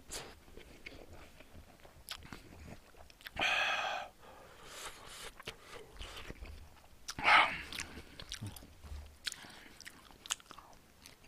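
Close-miked eating: a man chewing and biting food with small wet mouth clicks, picked up by a microphone right at his mouth. Two louder mouth sounds stand out, one about three and a half seconds in and a sharper one about seven seconds in.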